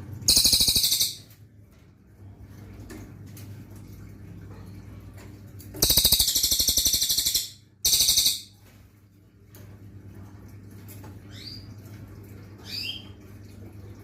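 A small songbird of the kind called cililin trotol singing loud, high, rapid trills: a short one at the start, a longer one about six seconds in and a brief one right after. Two fainter short gliding notes follow near the end, over a steady low hum.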